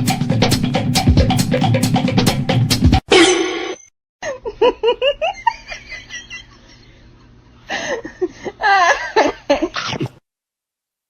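Music with a fast, even drum beat for about three seconds, cut off abruptly. After a short gap come high, wavering voice-like calls, typical of laughter, which stop about a second before the end.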